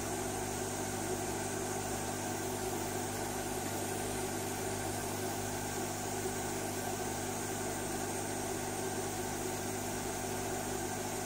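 Steady machine hum with a hiss, unchanging throughout, with a low electrical hum tone near 100 Hz and its overtones.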